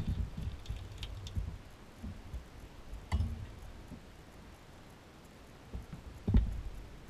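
New Zealand Auto Knitter circular sock knitting machine being handled: a low rumble in the first second or so, then a few scattered clicks and knocks of its metal parts, the loudest a thump a little after six seconds.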